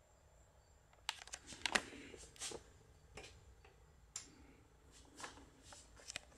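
Light scattered clicks and taps from handling an Akai AP-Q41 turntable, among them a click of its front-panel control button being pressed about four seconds in.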